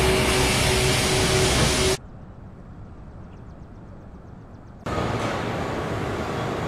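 Industrial robots working in a car body-welding cell: loud steady machinery noise with a steady hum. About two seconds in it cuts to a much quieter outdoor background with faint rapid ticking, then nearly three seconds later to the steady din of a busy auto-parts packing warehouse.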